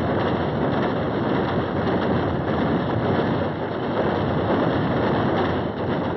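Steady rushing of wind and sea spray on the deck of a warship under way at speed, with no distinct gunshots or blasts.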